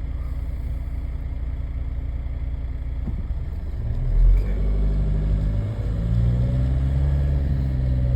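Ford Galaxy's 1.9 TDI four-cylinder turbodiesel idling, then from about four seconds in pulling away under throttle, its engine note rising in steps as the car accelerates.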